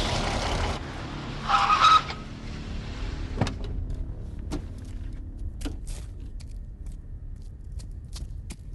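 Vehicle crash sound effects: the noise of a slide dies away, a short loud metallic screech comes about a second and a half in, then scattered small clinks and ticks of settling debris over a low rumble.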